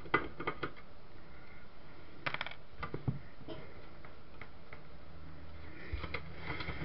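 Light clicks and knocks from handling a TV switcher's loose circuit board and its case, with a small cluster of taps a little over two seconds in and a few more near the end.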